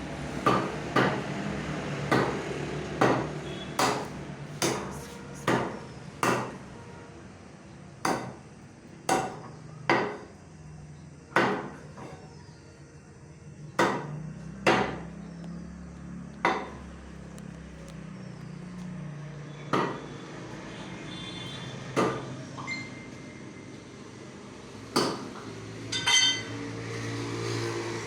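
Repeated sharp knocks, like hammer blows, coming in uneven runs: close together for the first several seconds, then about one a second, then only a few widely spaced strikes near the end. A steady low hum runs underneath.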